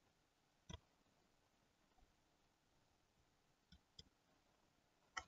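Near silence: room tone with a few faint computer clicks, one about a second in, two more past the middle and one near the end.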